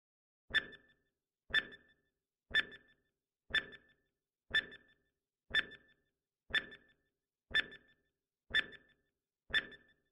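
Countdown timer sound effect: a short, sharp tick once every second, ten in all, as a quiz clock counts down.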